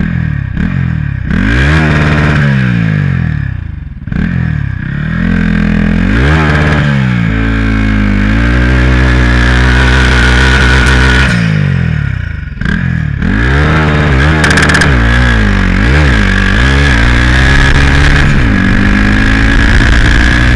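Turbocharged Honda Titan 160 single-cylinder engine revving up and falling back again and again under load, with a steady high whistle over it. The revs drop sharply about four seconds in and again about twelve and a half seconds in before climbing once more.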